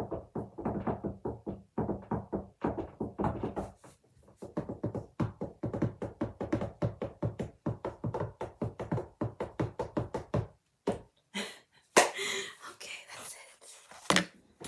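Rapid ASMR finger knocking and tapping on a hard, resonant surface, about seven taps a second. Near the end the tapping thins out into a few single knocks and some louder, hissier sounds.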